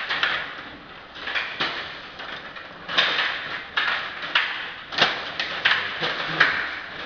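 Stiga table hockey game in play: plastic rods rattling and sliding in the table and the plastic players clacking against the puck and the boards, in an irregular run of rattles and sharp clacks.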